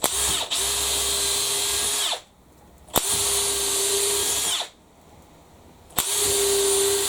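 Makita XPH07 (DHP481) brushless 18 V cordless hammer drill boring a 3.5 mm hole through Vitex hardwood. It runs in three bursts of about two seconds each and stops between them as the bit is pulled out to clear the flutes, which the Vitex jams up.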